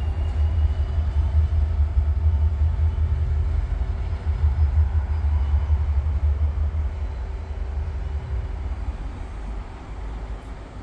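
Shunting locomotive running with a heavy low rumble that holds for about seven seconds, then fades away near the end.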